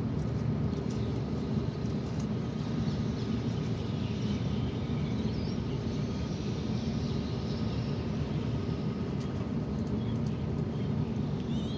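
Faint, high-pitched squeaky peeps of a baby zebra dove, a few short rising chirps about four to six seconds in and again near the end, over a steady low rumble.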